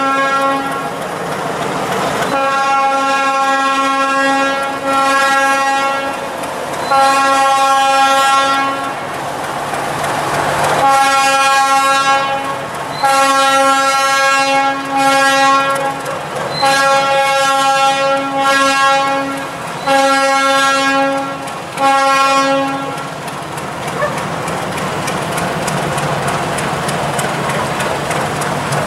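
Train horn sounding a long string of blasts, about a dozen, each one to two seconds with short gaps, stopping about two-thirds of the way through. After that, a Stadler diesel railcar running along the track with wheel clatter.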